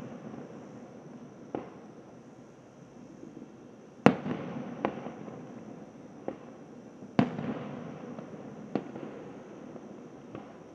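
Aerial fireworks shells bursting: about seven sharp bangs, each trailed by a rolling echo. The two loudest come about four and seven seconds in, with smaller reports between.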